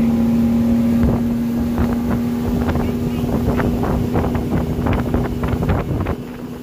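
Motorboat engine running steadily at speed, with wind on the microphone and a run of short knocks through the middle. The sound drops abruptly about six seconds in.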